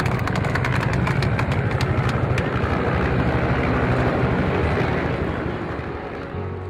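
Outdoor press-crowd noise: a dense run of camera shutter clicks for the first two or three seconds over a steady low rumble, fading away near the end.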